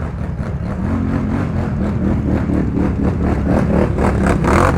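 ATV engine running under load, its level climbing a little about a second in.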